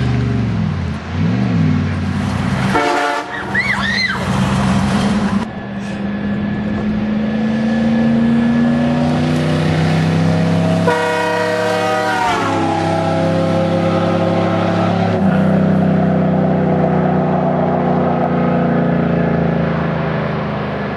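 5.7-litre Hemi V8 running with its DMH exhaust cutouts open as it drives by. A Siege Kong Mk2 air train horn is sounded twice over it, about three seconds in and again about eleven seconds in; the second blast sags in pitch as it ends.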